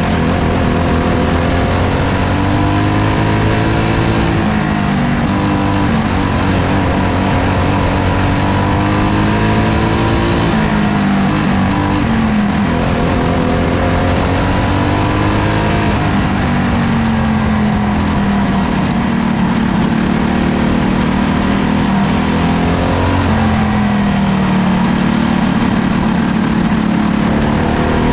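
Dirt-track race car engine heard from on board at racing speed, its pitch climbing and falling off again every few seconds as it runs the laps, over steady wind and track noise.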